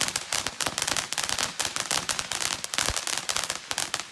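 Shogun Popcorn Fountain, a crackle gerb firework, burning with a dense, unbroken hail of loud crackling pops from its crackling stars, with one deeper thump just before three seconds in.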